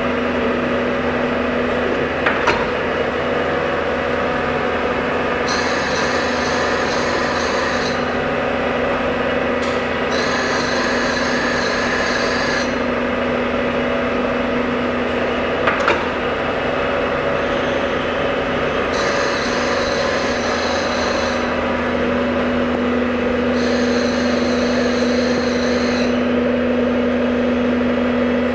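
Hob sharpening machine running, its dish grinding wheel sharpening the flutes of a gear hob: a steady machine hum with a high hiss that comes and goes in spells of two to three seconds, and a few short clicks.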